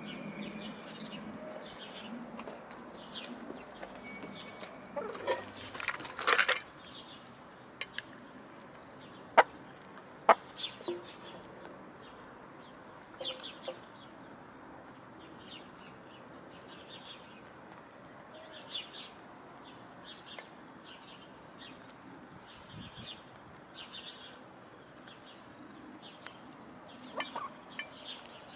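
Brown laying hens clucking while they peck at food in a metal bowl, with a few sharp pecking clicks. A brief noisy flurry of wing flapping comes about six seconds in.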